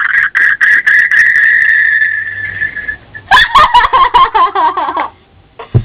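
Sound from a mobile phone's small speaker: a loud, steady high-pitched tone for nearly three seconds, then after a short gap a quick run of short warbling notes lasting about two seconds.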